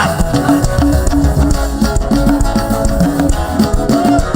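Band music with drums and percussion and a repeating short low riff, no singing.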